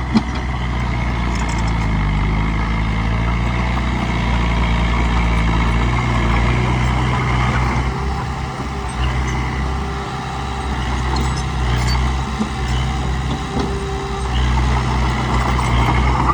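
Bulldozer's diesel engine running steadily under work, its pitch shifting a little in the first few seconds, with a high whine through the first half and a few light clanks.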